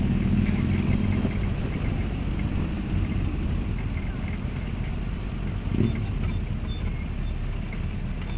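Motorcycle and trike engines running at low speed, a steady low rumble; one engine's tone is loudest for about the first second and then fades.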